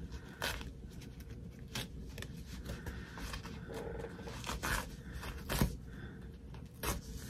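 Stiff tearaway embroidery stabilizer being torn and pulled off a small fabric zipper bag by hand: a few short, scattered crinkles and rips over quiet handling.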